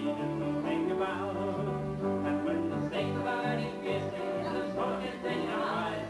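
Live band playing an instrumental tune: two fiddles carrying the melody over strummed hollow-body and electric guitars, with a bass line that steps from note to note.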